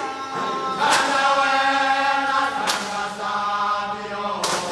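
A group of men singing a gwijo chant together, with a sharp hit about every two seconds keeping the beat.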